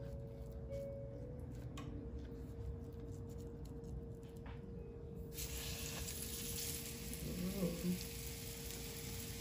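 Quiet handling of a fish fillet being pressed into flour, then, about five seconds in, a sudden frying sizzle as floured fish hits hot oil, carrying on steadily. A faint steady hum sits underneath.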